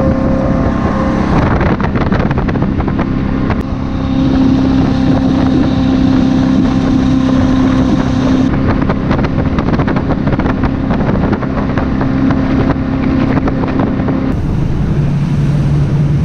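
Engine running with a steady drone and wind buffeting the microphone. The engine's pitch jumps abruptly a couple of times, dropping lower near the end.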